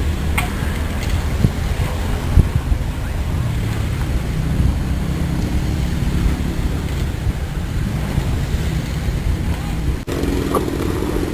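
Wind buffeting the microphone: a low, gusting rumble, with a sudden brief dropout about ten seconds in.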